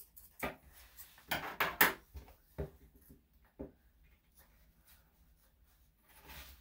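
A few sharp snips and clicks from grooming shears and tools working at a dog's matted tail, loudest in a quick cluster about one and a half seconds in.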